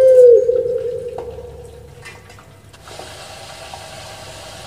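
Puter pelung dove (Barbary dove, Streptopelia risoria) finishing its long drawn-out coo: a low, steady note that breaks off about half a second in and trails away over the next second or so. A steady low hiss sets in about three seconds in.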